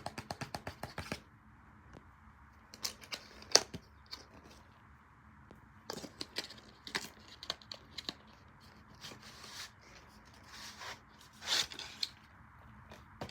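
Irregular short clicks and taps mixed with crinkling and rustling of handled material close to the microphone. A quick run of about a dozen clicks comes at the start, a single sharp click is the loudest about three and a half seconds in, and a longer rustling burst follows near the end.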